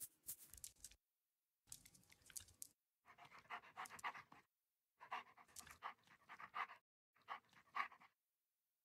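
Faint recorded timber wolf panting, in five bursts of about a second each with dead silence between them.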